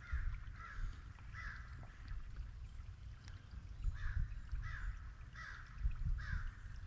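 A crow cawing repeatedly: three caws in the first second and a half, then a run of four more from about four seconds in, over a low rumble.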